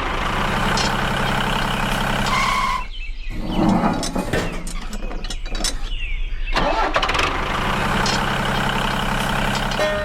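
Small engine running steadily, breaking off about three seconds in, with a rougher, uneven stretch before the steady running returns around seven seconds. A short high tone sounds just before the break.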